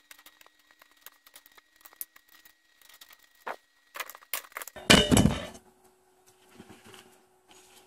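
Hands handling a wired mains plug and small tools on a cardboard-covered table: a run of light clicks and rustles, then one loud clatter about five seconds in as things are put down, followed by faint shuffling.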